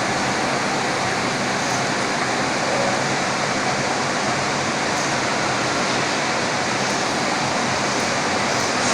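Gayatri gas singeing machine running, giving a steady, even noise with no change in level.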